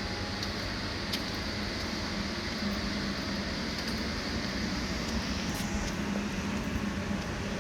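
Air conditioning running: a steady low hum under an even rush of air, with a few faint clicks.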